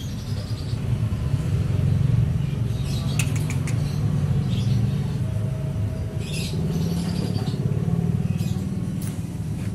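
A person calling a stray cat with short high mouth sounds: a quick run of clicks about three seconds in, then single calls every second or so. A steady low rumble sits underneath.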